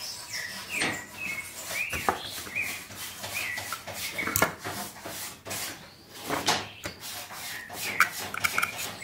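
Small wooden pieces of a hand-made cage feeder and perch being rubbed and handled, with irregular scraping and light knocks. Short bird chirps sound in the background, with a quick run of short notes near the end.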